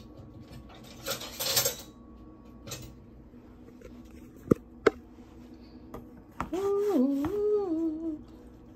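A woman humming a few gliding notes, rising and falling, in the last third. Before it there is a brief rustle near the start and two sharp clicks about half a second apart.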